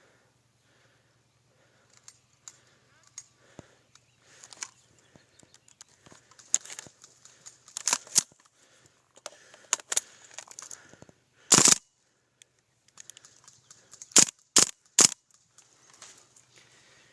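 Airsoft guns firing single sharp shots at uneven intervals. The loudest comes a little past the middle, and a quick run of three comes near the end, with faint clicking between.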